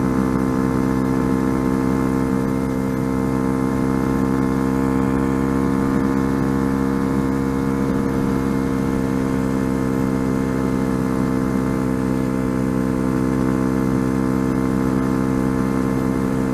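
Sinnis Apache 125 motorcycle engine running steadily at cruising speed, heard from on the bike, its note held at one even pitch.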